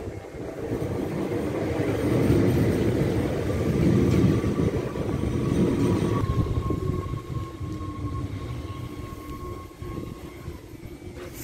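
NS Sprinter electric commuter train pulling into a station platform, its wheels rumbling on the rails and loudest a few seconds in as the cars pass close. From about six seconds in a steady whine sounds as it slows to a stop.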